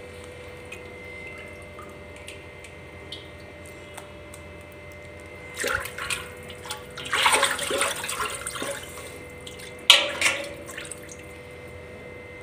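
A hand sloshing and scooping through buttermilk in a metal pot, gathering freshly churned butter. It starts with a couple of splashes about halfway through, then a longer stretch of sloshing, then a sharp splash near the end.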